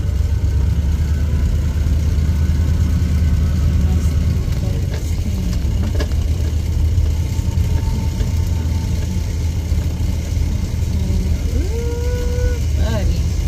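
A 1993 GMC school-bus conversion's engine running with a steady, loud low drone as the bus is driven. There are a couple of short knocks about five and six seconds in, and a short held pitched call near the end.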